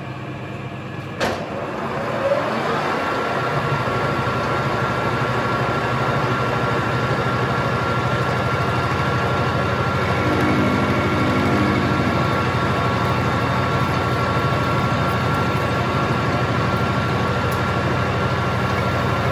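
Colchester geared-head lathe switched on with a click about a second in, then its spindle runs up to speed and runs steadily with a gear whine, turning a four-jaw chuck that holds square aluminium bar.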